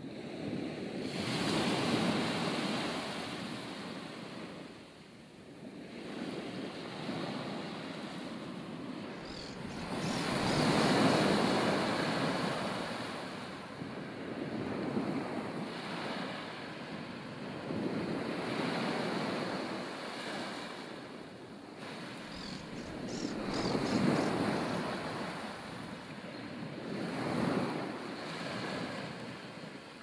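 Surf washing on the beach, rising and falling in swells several seconds apart, with wind on the microphone.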